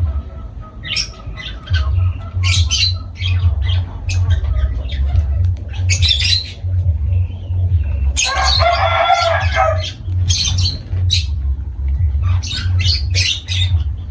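Lovebirds chirping and squawking in many short calls, with one longer, harsher call about eight seconds in. A low rumble runs underneath.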